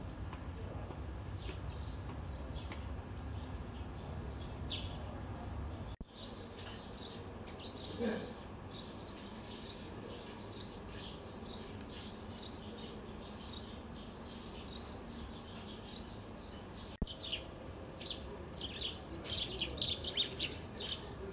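Small birds chirping over steady outdoor background noise, the chirps coming thick and fast in the last few seconds. The background rumble drops abruptly about six seconds in.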